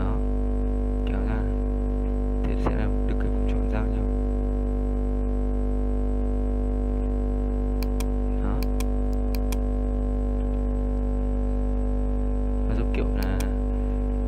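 A steady, unchanging electrical hum with many overtones, a mains buzz on the microphone line, under a few brief murmurs of a man's voice and some sharp clicks.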